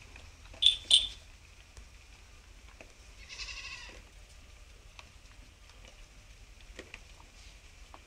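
A young goat kid bleats once, about three seconds in, a short wavering call. Two loud, sharp high squeaks come just before one second in, and faint clicks and shuffling of kids feeding from a bowl run underneath.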